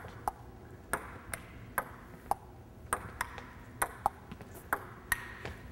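Table tennis rally: the ball clicking off the table and the paddles in turn, about two hits a second, in a large gym hall.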